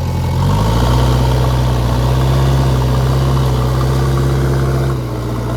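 JCB 3DX backhoe loader's diesel engine revving up in the first second, holding steady high revs, then easing off slightly near the end.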